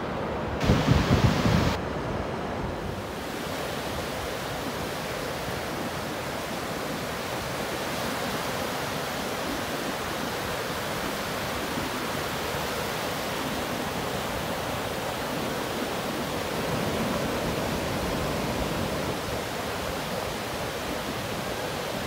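Ocean surf breaking and washing up a sandy beach: a steady, even rush of water. A brief louder rumble comes about a second in.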